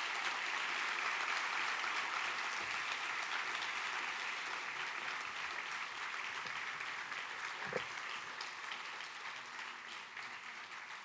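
A large audience applauding, steady clapping that begins strongly and slowly dies down.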